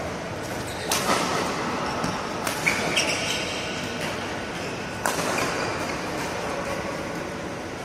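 Badminton rally: rackets hitting the shuttlecock in several sharp cracks at uneven intervals, with a short squeak about three seconds in, over steady hall noise.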